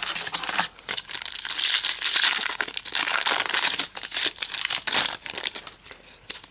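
Foil trading-card pack wrapper being torn open and crinkled, a dense crackly rustle that dies down in the last second.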